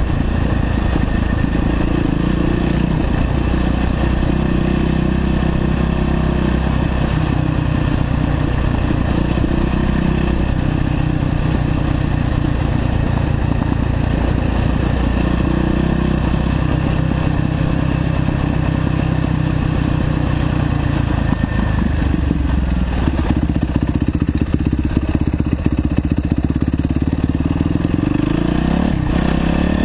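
2009 Yamaha YZ450F dirt bike's single-cylinder four-stroke engine running steadily while riding, with the revs rising briefly near the end.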